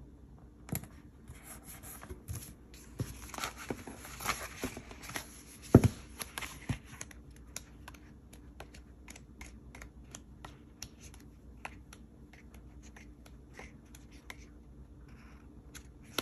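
Paper sticker-book pages being turned and handled: rustling and small ticks of the sheets, busier in the first half, with one sharp knock about six seconds in.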